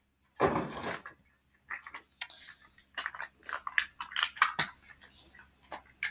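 Gift items and their plastic packaging being handled: a short rustle about half a second in, then a scatter of light clicks, taps and crinkles as small plastic things are moved and set down.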